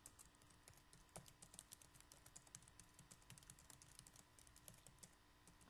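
Faint typing on a computer keyboard: a quick, uneven run of keystrokes.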